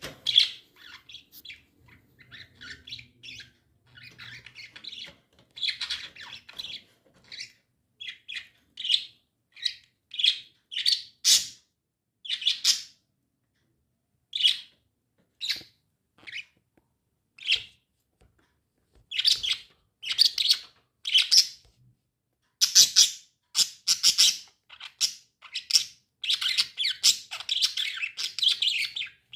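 Small pet parrots chirping and squawking in short, high calls, coming in irregular bursts with pauses, busiest and most continuous over the last third.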